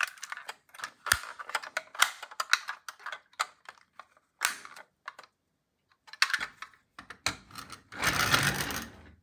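Handling noise from a die-cast model car: irregular clicks and taps as its small doors are shut and the metal-and-plastic body is turned in the fingers, then about a second of rubbing and scraping near the end.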